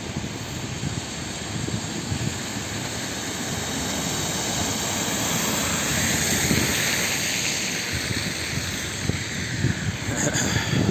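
A car driving through standing floodwater on the street, a rushing hiss of tyres in water that swells to a peak about six to seven seconds in and then fades, over a steady wash of noise.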